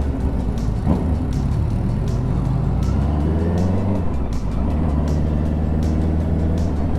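Honda CB650R's inline-four engine running under way, its pitch settling lower at the start, then rising again about halfway through as the bike picks up speed and holding steady near the end.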